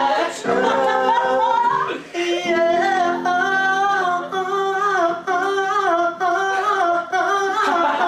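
A man singing solo, holding long notes with a waver in the pitch, accompanied by sustained chords on an electric keyboard; there is a short break about two seconds in.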